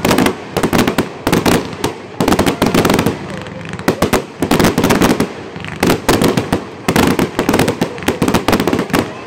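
Fireworks firing in rapid volleys: several sharp bangs a second as shells burst low overhead, in clusters with brief lulls between.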